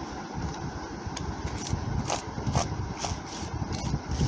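A brush scrubbing across a Lenovo G50 laptop keyboard in short, irregular scratchy strokes, with small clicks from the plastic.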